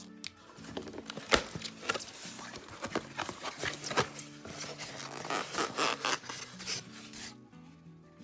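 A product box and its packaging being opened and handled: irregular rubbing, scraping and knocking that stops shortly before the end, over quiet background music.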